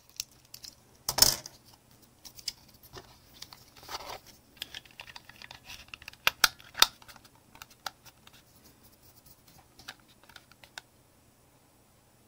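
Plastic clicks, taps and rustles as a black plastic digital pocket scale is handled and its cut battery cover is fitted back on. There is a louder crackling snap about a second in and a few sharp clicks around the middle.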